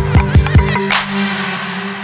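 Background electronic music with a fast, steady kick-drum beat that stops about a second in, leaving a held note that fades away.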